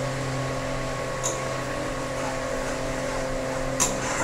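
Metal ladle clinking against an iron kadai as a thick curry is stirred: two sharp clinks, about a second in and near the end, over a steady electric hum.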